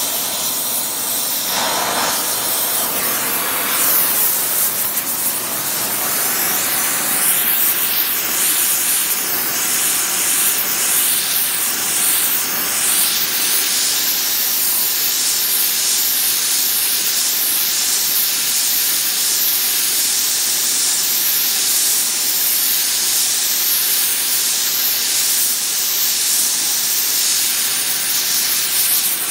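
Oxy-fuel gas torch burning with a steady hiss as its flame heats a steel plate clamped in a vice.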